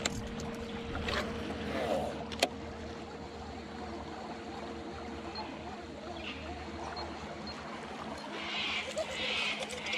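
Bow-mounted electric trolling motor on a small aluminium boat humming steadily, stopping about eight seconds in. A sharp click comes a couple of seconds in, and short bursts of hiss follow near the end.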